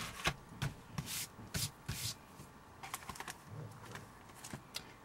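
Hands handling soft pastel sticks and paper on a work table: scattered light taps and brief rustles, irregular, several a second at times.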